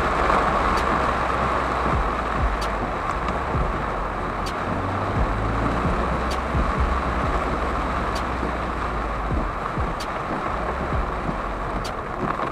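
Heavy rain hitting a moving car's windscreen and roof, heard from inside the cabin as a steady hiss over low road and engine rumble. Faint ticks come about every two seconds.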